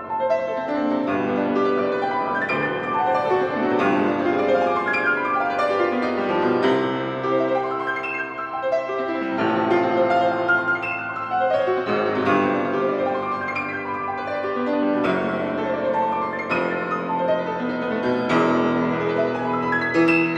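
Background piano music, a steady flow of notes and chords.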